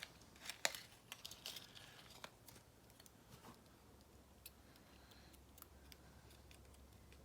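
Faint, scattered small metal clicks and taps as a mortise lock cylinder is taken apart with a shim and plug follower. The clicks come thickest in the first few seconds and thin out after.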